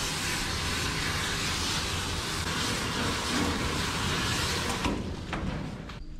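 Water spraying from a hand-held bathing hose nozzle onto a wet dog and splashing in a steel grooming tub, a steady hiss that stops about five seconds in.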